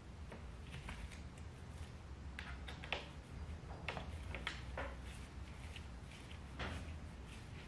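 Light metal clicks and short scrapes of a hex driver working the end-cap bolts of an aluminium FMF Shorty dirt-bike silencer, with the silencer handled between strokes. Irregular, with the clearest clicks just before three seconds, around four to five seconds and near six and a half seconds, over a low steady hum.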